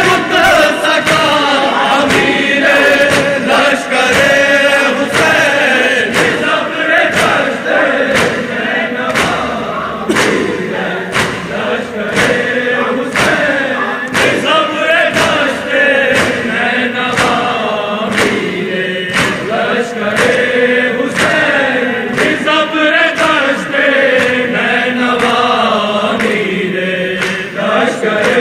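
Men chanting a Shia noha in unison, a lead voice with a group repeating, over a steady beat of chest-beating (matam) thumps.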